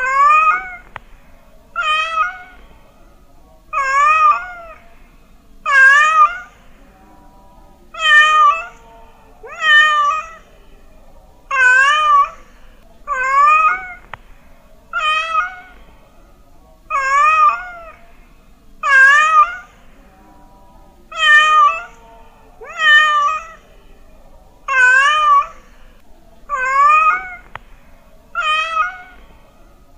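Domestic cat meowing over and over, about one near-identical meow every two seconds, each meow rising and then falling in pitch.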